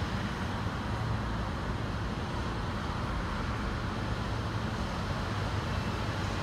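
Steady outdoor background rumble and hiss with no distinct event, while the track stands empty.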